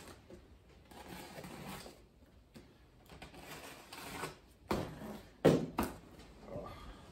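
Packing tape being cut and peeled off a cardboard box, with scraping and rustling of cardboard and two louder sharp rips about five seconds in.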